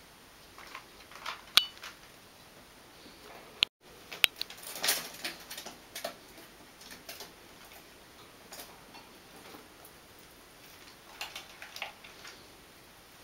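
Pet rats nosing and scrabbling at a cardboard egg box: scattered light clicks, taps and brief rustles of cardboard, the sharpest about one and a half and four seconds in.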